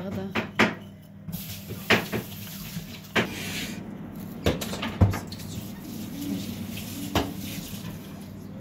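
A couple of last scraping strokes of a hand grater over a stainless steel bowl, then a handful of separate sharp clicks and knocks as a plastic garlic press is worked and knocked against the bowl.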